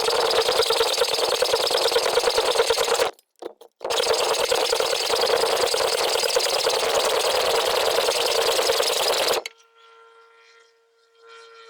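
Welding arc crackling in two runs: one of about three seconds, a short break, then one of about five and a half seconds that stops suddenly, as pins are welded onto a bike's front brake. A faint steady hum follows near the end.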